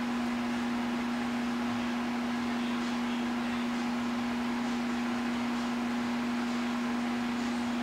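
A steady machine hum: one constant low tone over an even hiss, unchanging throughout.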